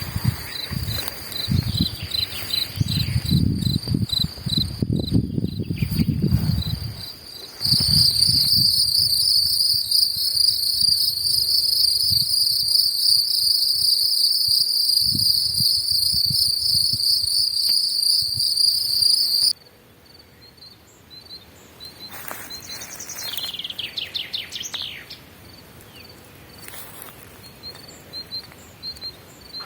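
Insects singing in a steady, shrill, high-pitched chorus outdoors, much louder from about eight seconds in until it cuts off abruptly near twenty seconds. Low rumbles sit under the first few seconds, and a short bird call comes near the end.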